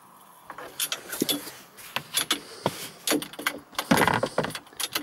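Metal spanner clicking and clinking on a nut and bolt as an aluminium solar-panel mounting bracket is tightened down. The clicks are irregular, with a louder rattle about four seconds in.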